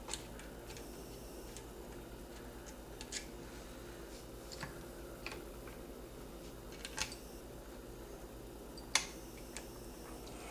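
A few scattered light clicks of metal gun parts being handled as the lever screw is worked into a Marlin 336 lever-action rifle, over a steady low hum.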